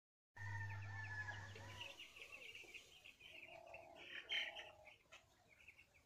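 A brood of young Vanaraja chicks cheeping, many quick high peeps overlapping without pause. A low steady hum runs under them for the first second and a half.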